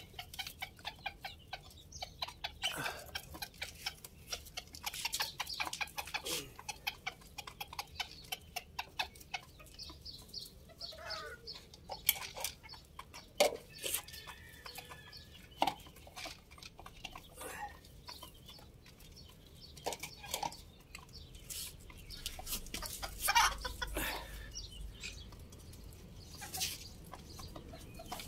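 Chickens clucking as they feed, with many quick sharp clicks of pecking at the feed. A brief low rumble comes about 23 seconds in.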